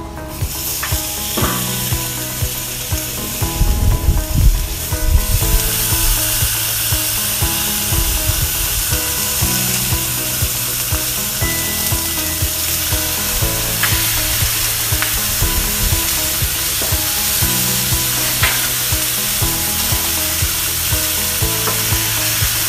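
Raw pork chops sizzling on a hot Blackstone flat-top griddle as they are laid down one after another. The sizzle grows much louder about five seconds in and then holds steady, with a few light clicks. Background music runs underneath.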